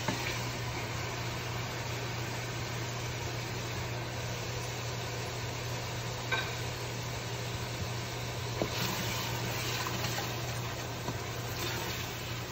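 Onion, tomato and spice masala sizzling in hot oil in a pressure-cooker pot while a wooden spoon stirs it, with a few light knocks of the spoon on the pot. A steady low hum runs underneath.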